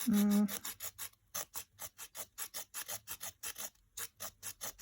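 Small saw blade of a cheap Swiss Army knife look-alike sawing fresh, not yet dry wood: quick back-and-forth rasping strokes, several a second. A short hummed voice sound comes at the very start.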